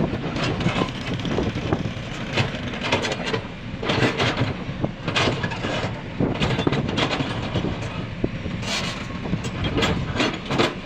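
Excavator's diesel engine running steadily under load, with repeated sharp clanks and scrapes as its toothless bucket works in the dirt.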